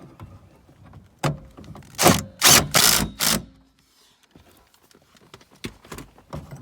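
A tool driving the T30 Torx screws that hold the door handle in place: a quick cluster of five or so short, loud bursts around the middle, with light handling noise around them.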